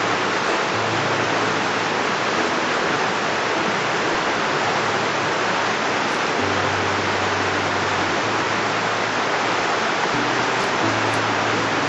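A shallow river running over rocks, a steady even rush of water.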